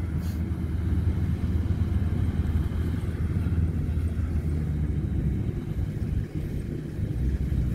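Kubota DC-105X combine harvester running steadily while cutting rice, a continuous low rumble with a brief dip about six seconds in.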